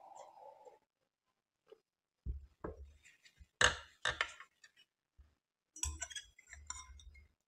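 A spoon clinking and knocking against a glass bowl and a serving tray, a series of separate sharp clinks with dull thuds of handling; the sharpest clink comes about halfway through. At the very start, a short slurp as kheer is drunk straight from the bowl.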